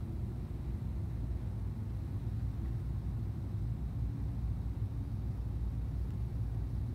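Steady low background rumble, even throughout, with no distinct sounds standing out.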